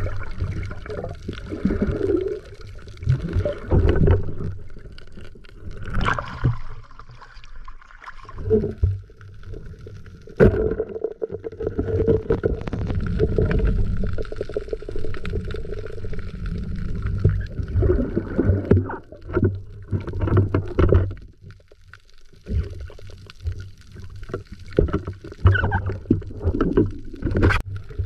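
Muffled underwater noise heard through a waterproof camera housing: water rushing and gurgling around the housing in uneven swells, with sharp knocks about ten seconds in and again near the end.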